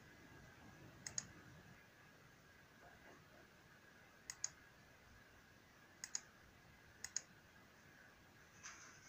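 Clicks of a computer pointing-device button: four quick double ticks, each pair about a tenth of a second apart, spaced one to three seconds apart, with near silence in between.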